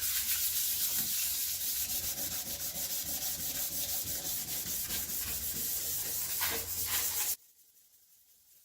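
Coarse 80-grit sandpaper rubbed by hand in circular strokes over a glossy polished door: a steady, rhythmic scratchy rasp that scuffs the gloss matte. It cuts off suddenly about seven seconds in.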